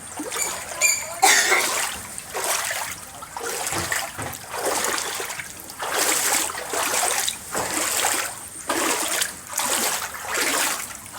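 Floodwater splashing in repeated surges, roughly one a second.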